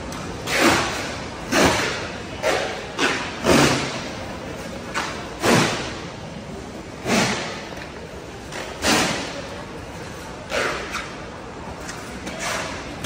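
Footsteps on a hard stone floor: irregular thuds about once a second, each with a short echo.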